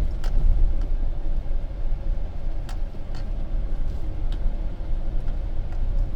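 Vehicle driving slowly on a freshly laid gravel road, heard from inside the cab: a steady low rumble of engine and tyres, with scattered light clicks and rattles.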